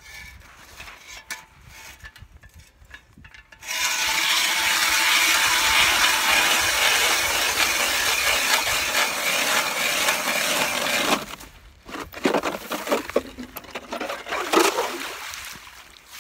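Ice auger boring a fishing hole through lake ice: a loud, even hiss for about seven seconds that starts and stops abruptly. It is followed by scattered clinks and knocks of ice chips being cleared.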